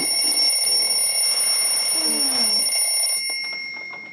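A bell-like ringing of several steady high tones, which stops a little over three seconds in and rings away over the next second.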